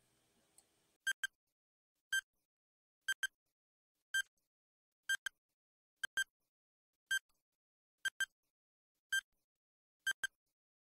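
Countdown timer sound effect ticking about once a second, with single and double ticks in turn like a clock's tick-tock.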